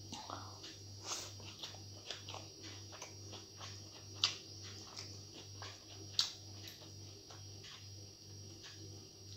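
Close-up chewing of a mouthful of rice eaten by hand, with a steady run of short wet mouth clicks and lip smacks, two of them sharper about four and six seconds in. A steady low hum runs underneath.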